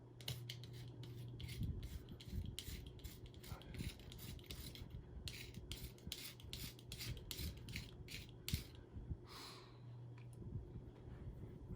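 Quick repeated cutting strokes as a blade slices through hair wound tightly around a vacuum cleaner's beater bar brush roll, about two to three strokes a second, thinning out near the end. The hair clog is what stopped the beater bar turning.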